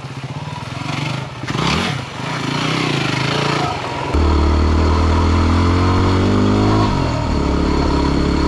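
Dual-sport motorcycle engine running as the bike is ridden along a dirt trail, with a rush of noise about two seconds in. About four seconds in the engine suddenly gets louder and holds a steady note, rising slightly in pitch a little later.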